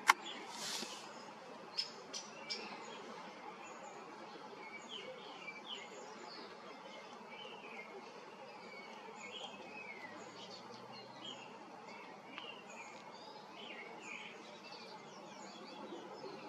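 Small birds chirping in short, scattered calls over a steady low hiss, with a sharp click right at the start and a few softer clicks about two seconds in.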